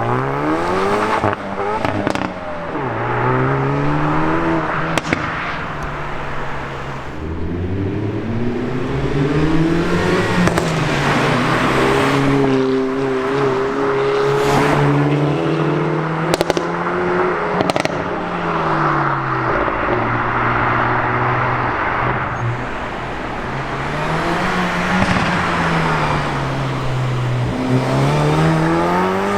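Hyundai i30N's turbocharged 2.0-litre four-cylinder engine and exhaust revving and accelerating, its pitch rising and falling several times, with a few sharp exhaust crackles and pops.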